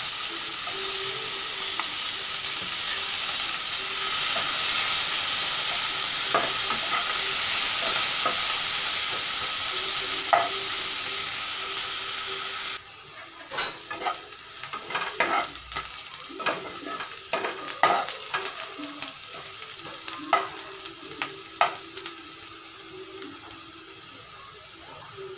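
Sliced onions sizzling loudly in hot oil in a nonstick kadai. About halfway through the sizzle drops off suddenly and goes on quieter, under the scrapes and taps of the onions being stirred in the pan.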